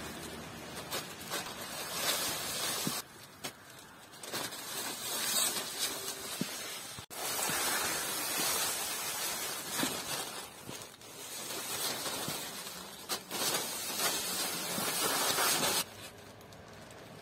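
Thin plastic sheeting crinkling and rustling as puppies climb on it, paw it and tug at it, loud at times and quieter in a couple of short stretches, one of them near the end.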